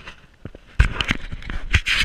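Irregular knocks and scraping rustle, a cluster of them in the second half.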